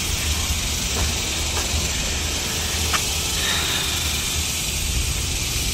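Steady outdoor background hiss with a fluctuating low rumble and a few faint clicks.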